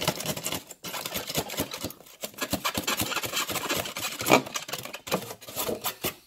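Utility knife blade sawing through a polystyrene foam cooler lid: rapid scratchy, squeaky strokes with short breaks about one and two seconds in, and one louder stroke a little past four seconds in.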